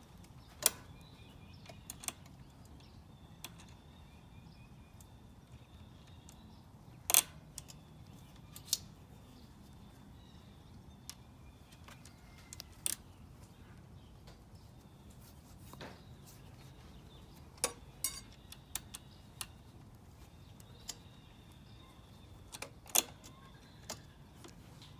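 Scattered sharp clicks and light taps of a brake cable being fitted by hand to a bicycle brake lever, over a quiet low hum. The loudest clicks come about a third of the way in and near the end.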